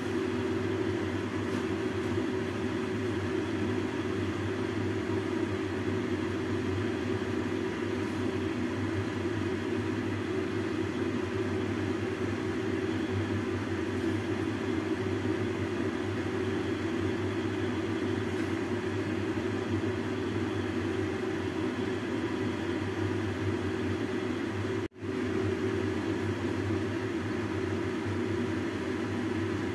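Steady whirring hum of a fan motor, unchanging throughout, cut off for an instant near the end.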